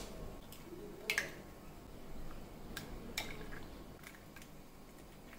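Eggs being cracked open into a small bowl: a few short, sharp cracks of eggshell, the loudest about a second in and about three seconds in, with fainter taps between.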